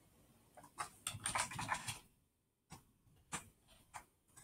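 Faint computer mouse clicks: a few single, separate clicks in the second half, with a soft rustling noise about a second in.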